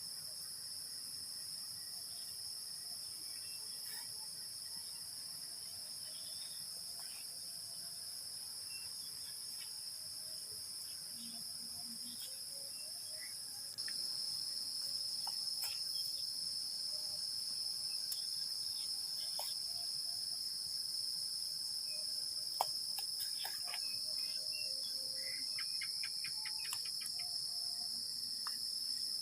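Steady, high-pitched chorus of crickets or other forest insects trilling without pause, jumping abruptly louder about halfway through, with scattered faint clicks and one sharp click near the end.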